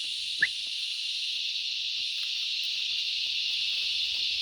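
Steady, high-pitched drone of cicadas. About half a second in, one brief, sharp call falls steeply in pitch.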